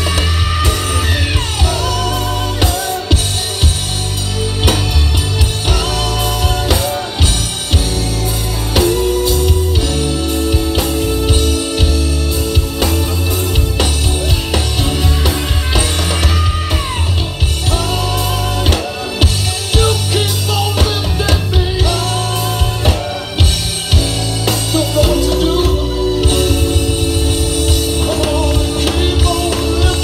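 Live band playing, a lead singer's voice with vibrato over drum kit, electric guitar and heavy bass, amplified through a PA.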